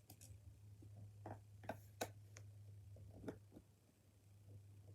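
Faint scattered clicks and taps of a screwdriver and small screws against a plastic toy blaster being taken apart, four or five sharp ticks over a low steady hum.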